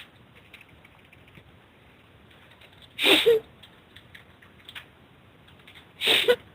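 Faint clicking and tapping over a phone line's background hiss, broken twice, about three and six seconds in, by a short breathy burst of voice.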